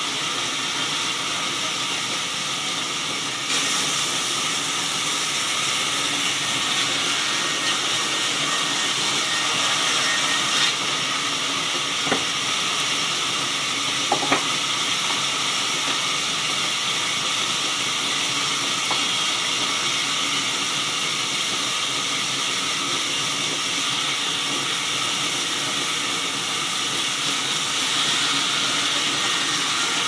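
Belt-driven vertical band saw cutting a slab of jackfruit wood: a steady high whine of the blade, a little louder from about three and a half seconds in, with a couple of faint knocks around the middle.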